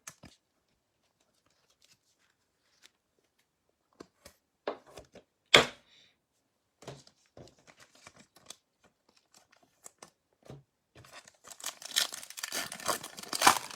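Scattered soft clicks of trading cards and packaging being handled, with one sharp click about halfway. Over the last few seconds a foil trading-card pack wrapper is torn open and crinkles.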